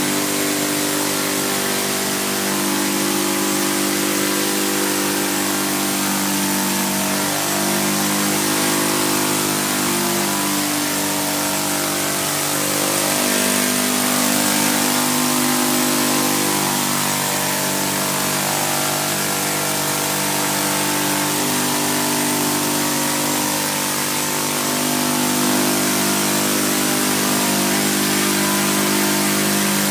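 Saito FG-20 single-cylinder four-stroke gasoline engine running at flying speed on a 15x8 propeller, its pitch wavering slightly up and down, over the rushing hiss of the propellers as the hybrid multirotor hovers.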